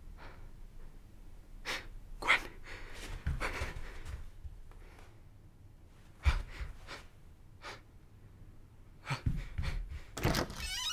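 A person breathing hard in separate ragged gasps, with a soft low thump about six seconds in.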